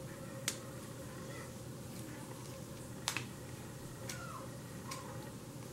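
Faint plastic clicks from an X-Transbots Arkose transforming robot figure's hinges and tabs being folded by hand, with two sharper clicks about half a second and three seconds in and a short faint squeak near the end, over a steady hiss.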